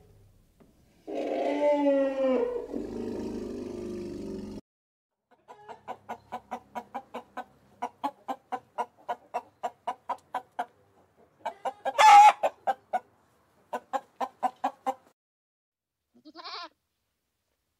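An animal calling: a pitched call near the start, then long runs of short, evenly spaced pulsed calls at about four a second, broken by one louder, harsher call in the middle.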